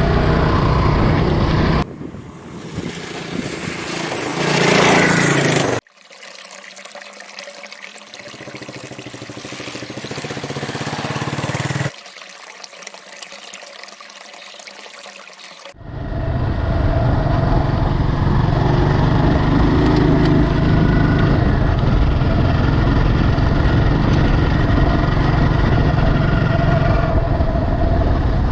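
Scrambler motorcycle engine running on a dirt road, in several short clips with abrupt changes. One rev rises in pitch a few seconds in, and there are quieter stretches in the middle. The last twelve seconds or so are a steady engine drone.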